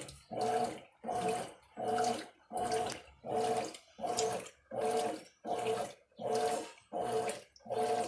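Mueller Energy 8 kg top-loading washing machine agitating in its wash cycle. Its motor hums in short, even strokes, about one and a half a second, with water sloshing on each stroke as the agitator turns one way and then the other.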